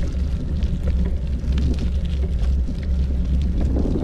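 Wind buffeting the microphone while moving along: a steady low rumble with a light crackle above it.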